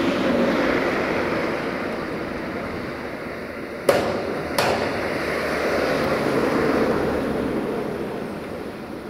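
A tram rolling slowly on depot track, its running gear rumbling and slowly fading, with two sharp wheel clacks over a rail joint a little under a second apart near the middle.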